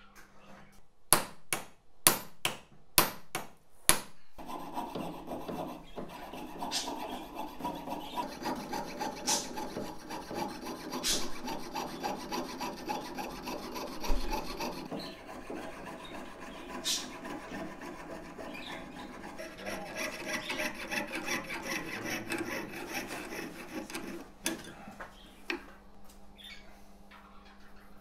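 A jeweller's piercing saw cutting thin metal sheet against a wooden bench pin: a fast, even rasp of short strokes that goes on for about twenty seconds. It is preceded by several sharp taps about a second in, the loudest sounds here.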